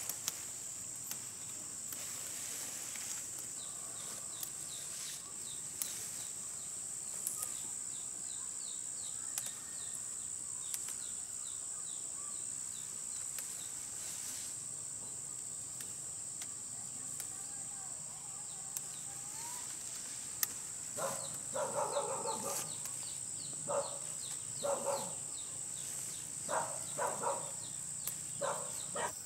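Steady high-pitched drone of insects in the field, with scattered rustles and snaps of cassava leaves being handled and picked. About two-thirds of the way in, a string of short pitched calls sets in and recurs until the end.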